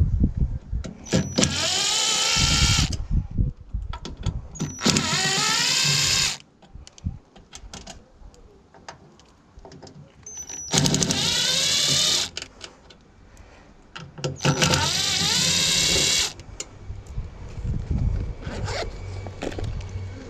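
Cordless drill-driver running in four short bursts of about a second and a half each, its pitch rising as each one spins up, with clicks and handling noise in between.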